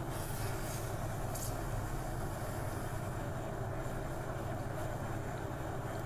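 Red-hot steel bayonet blade water-quenched to harden it: hissing from the water as the hot steel goes in, brightest in the first second with another short hiss about a second and a half in, over a steady low drone.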